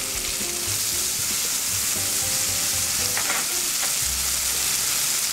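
Chopped shallots, celery, garlic and green pepper sizzling in hot oil and butter in a skillet: a steady, loud frying hiss.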